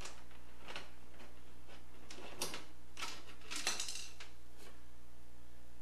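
Screws being worked out of a refrigerator's louvered vent panel by hand: a handful of short metallic scrapes and clicks, over a steady low hum.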